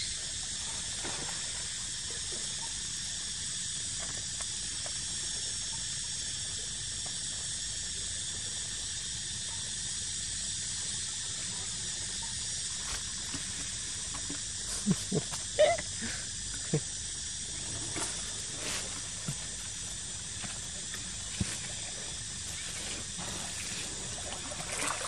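Steady high hiss of outdoor ambience over a pond, with a few faint, short water sounds a little past halfway as a macaque swims.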